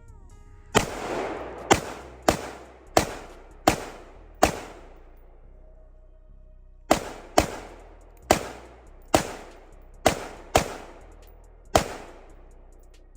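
Thirteen single gunshots, each ringing out briefly, fired at a steady aimed pace in two strings: six, then a pause of about two seconds, then seven more.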